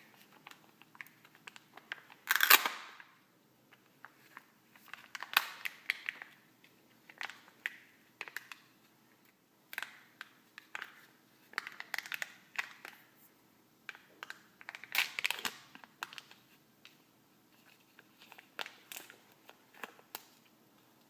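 Kinder Joy egg packaging being unwrapped by hand: the plastic wrapper and the sealing film of the chocolate tray crinkling and tearing, with small clicks from the plastic egg halves. It comes in irregular bursts, the loudest about two and a half seconds in.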